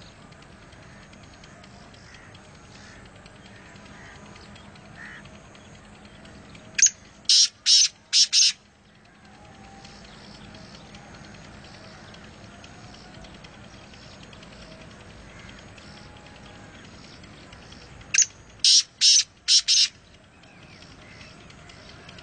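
Black francolin calling twice: two loud, harsh phrases of about five clipped, high-pitched notes each, the second about eleven seconds after the first.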